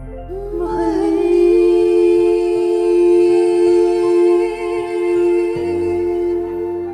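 A singer holding one long note for about six seconds, sliding up into it at the start with a slight vibrato, over a karaoke backing track.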